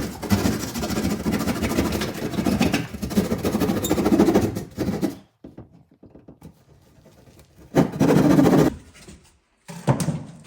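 A saw cutting through drywall, running for about five seconds before stopping, then a second short burst of cutting about eight seconds in and a brief one near the end, as a piece of the wall is cut out around a hole.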